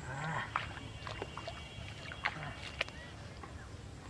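Water in a flooded paddy field being splashed and sloshed, with irregular short splashes.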